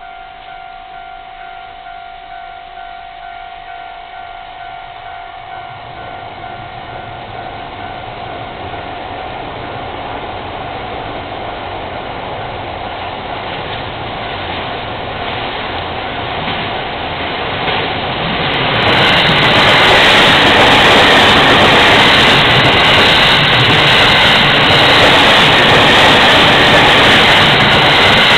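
Japanese level-crossing warning bell ringing steadily as an E231 series electric commuter train approaches, the train noise growing louder. About 19 seconds in the train passes close by, a loud rush of wheels on rails that drowns out the bell.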